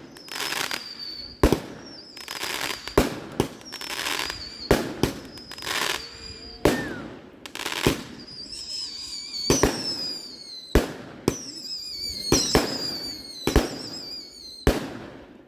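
Fireworks going off in a display: a run of sharp bangs, roughly one a second, some of them crackling, with high whistles that fall in pitch.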